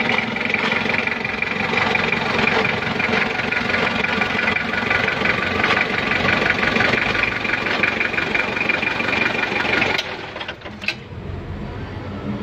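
Mitsubishi S4S four-cylinder diesel engine of a forklift running with a steady, rapid diesel clatter. About ten seconds in the sound drops off sharply to a much lower level, with a single click soon after.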